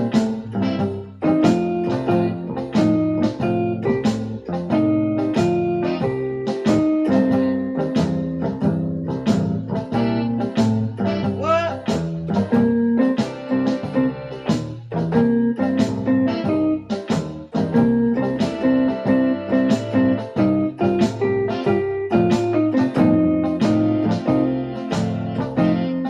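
Electronic keyboard played in a blues style, chords with a melody over them and a steady run of struck notes.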